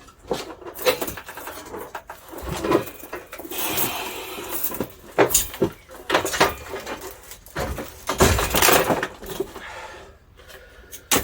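Irregular knocks, clicks and scraping from handling a heavy cable drum and its cable, with a louder burst of scraping and knocking a little past the middle.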